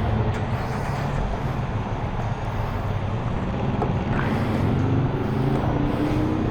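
Benelli TNT600 motorcycle engine idling steadily, heard through a helmet-mounted mic, with a faint tone rising in pitch over the last couple of seconds.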